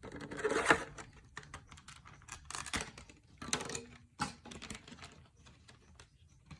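Pokémon trading-card tin and its packaging being handled and opened: irregular clicks, taps and rustles of metal, plastic and card, busiest in the first second.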